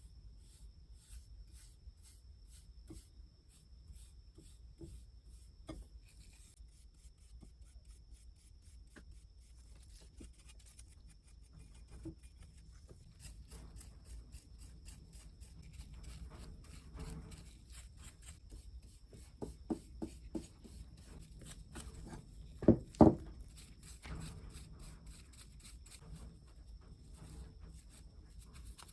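Hand rubbing and polishing strokes on an old axe head, with light knocks throughout and two loud knocks in quick succession about two-thirds of the way through.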